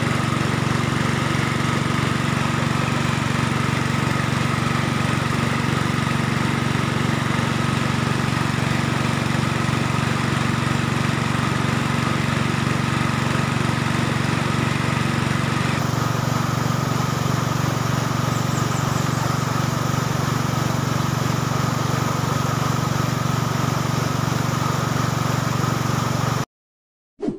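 Small petrol engine driving a gold-dredging suction pump, running steadily, over rushing river water. The sound cuts off suddenly near the end.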